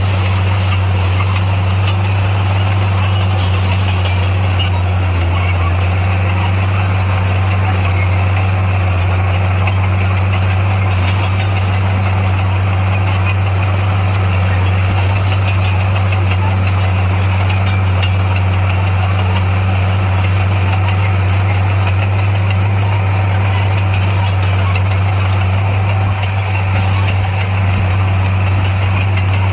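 Heavy-equipment diesel engine running steadily with a constant low drone and no change in pitch.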